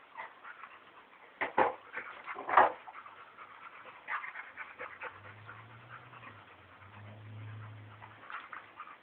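Two dogs play-wrestling: constant scuffling and panting, two sharp knocks about one and a half and two and a half seconds in, then a low growl lasting about three seconds near the end.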